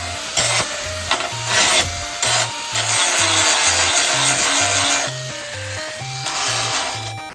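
A power tool working metal, loud and noisy, in several short bursts then a steadier stretch over the first five seconds, and once more briefly near the end, over background music with a steady beat.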